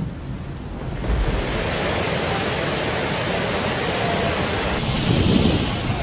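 Rushing storm noise of strong wind and crashing surf, heavy on the microphone. The sound changes abruptly about a second in and again near five seconds.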